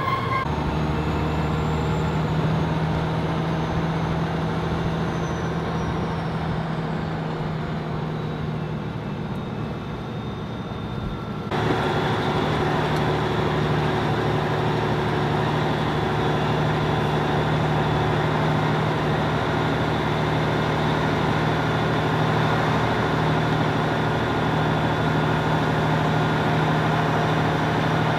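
Semi-truck's engine running steadily, heard from inside the cab. About eleven seconds in the sound abruptly gets louder and fuller as the truck rolls along the road.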